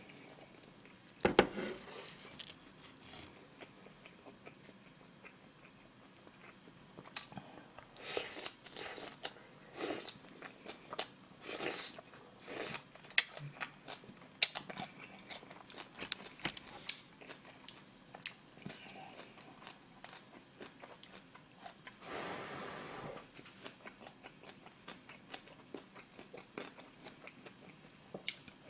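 Close-up eating sounds: a man slurping instant ramyeon noodles and chewing with his mouth. Short, separate mouth sounds come one after another through the middle, with one longer slurp a little after 22 seconds in.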